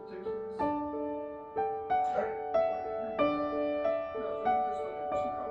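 Soft background piano music: a slow melody of single notes, each struck and left to fade.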